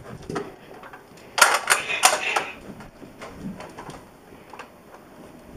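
A quick run of sharp plastic clacks, half a dozen in about a second, from a toy Nerf blaster being handled and worked.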